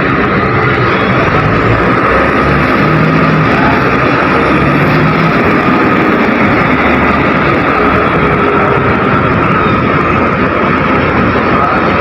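Diesel engine of a SANY reach stacker running loud and steady as the container handler drives past, with a steady whine over it.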